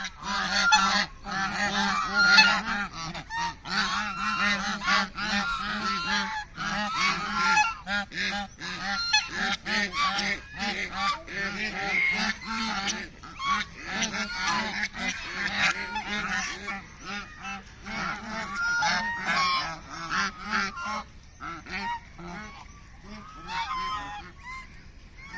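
A large flock of ducks calling all at once, a dense, overlapping chorus of loud quacks and honks that thins and grows fainter about 21 seconds in.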